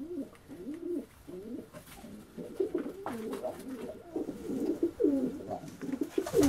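Several domestic pigeons cooing, their low rolling coos overlapping and repeating, louder in the second half, with a few faint brief knocks.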